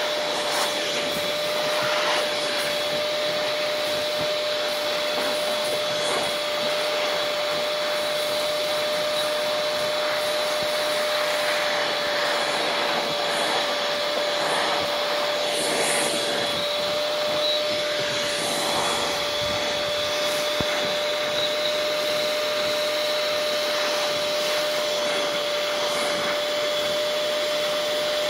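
Shop-vac running steadily with a constant whine, sucking sand from between dahlia tubers in a storage box.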